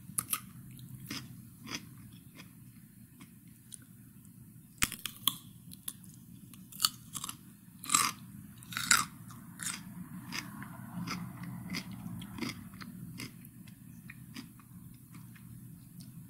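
Cucumber being bitten and chewed: irregular crisp crunches, few at first, coming thick and fast through the middle, then thinning out, over a steady low hum.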